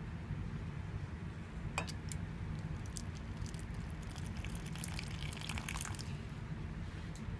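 Water poured from a glass beaker into a plastic tray, splashing onto a sheet of paper. The splashing starts sharply about two seconds in and dies away about six seconds in, over a steady low hum.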